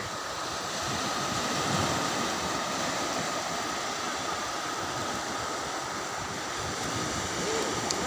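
Sea surf: low waves breaking and washing up a sandy beach in a steady rush.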